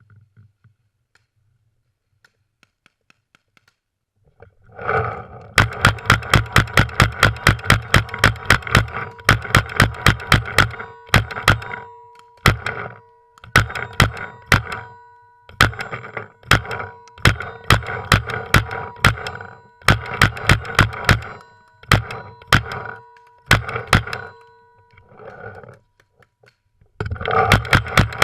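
Airsoft rifle firing on full auto in bursts: rapid, evenly spaced sharp cracks over a steady whine. A long burst starts about five seconds in, followed by many shorter bursts with gaps between them and one more burst near the end.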